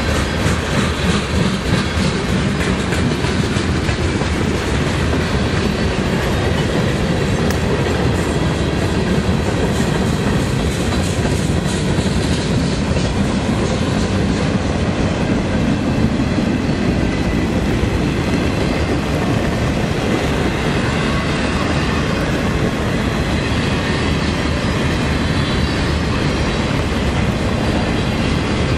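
CSX freight train's cars rolling past at close range: a steady loud rumble of steel wheels on rail, with clickety-clack from the wheels.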